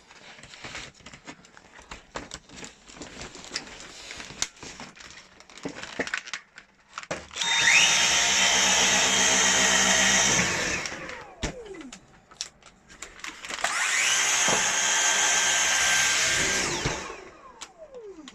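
Dyson V8 Animal cordless stick vacuum switched on twice, each run about three and a half seconds: the motor spins up fast to a steady high whine with a rush of air, then winds down with a falling whine when it is switched off. Clicks and rattles of handling come before the first run.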